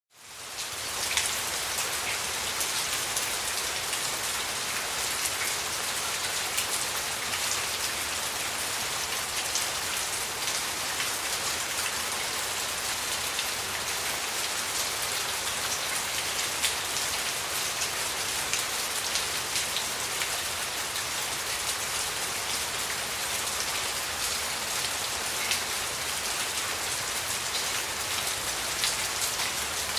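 Steady rain falling on a surface, a dense even hiss of countless drops with distinct individual drop ticks throughout. It fades in over the first half second.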